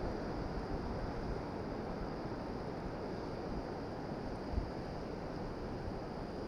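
Steady wind and sea noise: a low, rumbling hiss of wind on the microphone and water washing in the shallows, with no distinct events.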